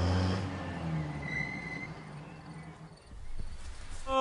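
Truck engine running, heard from inside the cab, fading out over the first two seconds or so and leaving a faint outdoor background.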